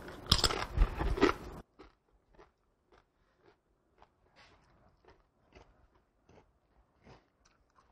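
A person bites into a corn tortilla chip topped with pico de gallo and chews it. There is loud, crisp crunching for about the first second and a half, then quieter crunching chews about twice a second.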